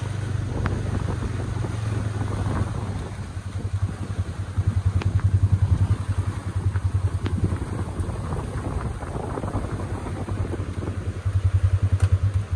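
Engine of a side-by-side utility vehicle running, a steady low rumble with a fast even pulse that swells louder around the middle and again near the end.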